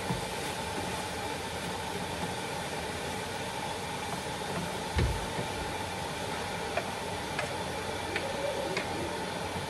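Spätzle frying in butter in a pan, a steady hiss, with a wooden spatula knocking against the pan now and then as they are stirred; one heavier thump about five seconds in.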